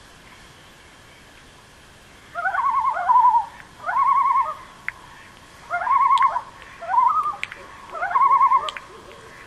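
Common loon yodelling: five loud phrases about a second apart, starting a couple of seconds in, each sliding up and then wavering rapidly. Under them is a faint steady background hum of a distant chorus.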